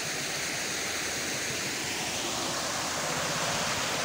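Spring water pouring in a strong jet over a stone lip into a pool, a steady rushing splash.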